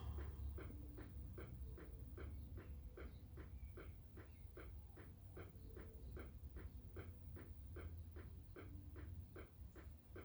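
Turn-signal flasher on a 1995 Range Rover P38 ticking steadily, about three clicks a second, with the indicator left running on a newly fitted replacement bulb to test how long it lasts. A low steady hum runs underneath.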